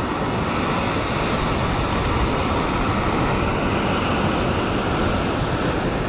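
Ocean surf breaking and washing over a rock ledge close by, a steady rush of white water, with wind buffeting the microphone.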